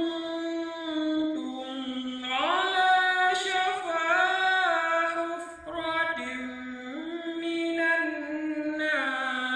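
A man reciting the Qur'an in melodic tilawah style: one long ornamented phrase, his voice holding notes and stepping up and down between them, with a brief dip about halfway.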